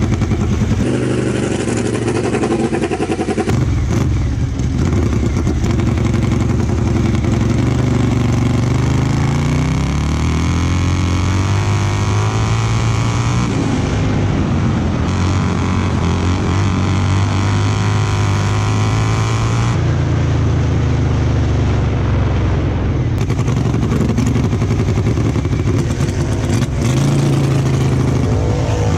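Racing lawn mower's engine heard from on board, running hard, its pitch rising and falling as it accelerates and backs off, with several abrupt changes in the sound.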